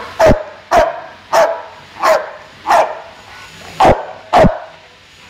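American bulldog barking: seven loud single barks about half a second apart, with a short pause before the last two.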